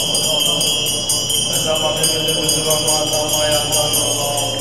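Tibetan Buddhist monks chanting in low voices over a metallic ringing that strikes in a fast, even rhythm of about five or six a second, as from shaken ritual bells.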